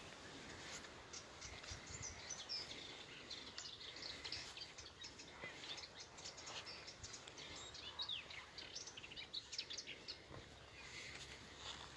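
Faint outdoor ambience of small birds chirping and calling in short, quick notes, with irregular scuffs and clicks of footsteps on loose rock.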